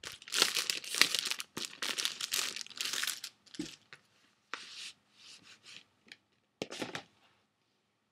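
Cardboard packaging being torn open and crinkled: about three seconds of dense tearing and rustling, then a few shorter crackles, stopping about seven seconds in.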